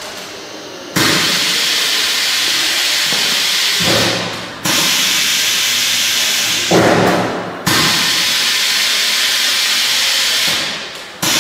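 Vertical nozzle-type vacuum sealer hissing loudly as it draws the air out of a large plastic bag. The hiss comes in three bursts of about three seconds, each dying away into a lower whoosh, and a fourth starts right at the end.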